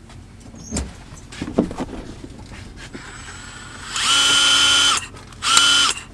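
Snap-on 14.4-volt cordless inline (pencil-style) drill running free with a steady high whine, triggered twice: about a second, then a shorter burst half a second later. A few light clicks come first as the tool is handled.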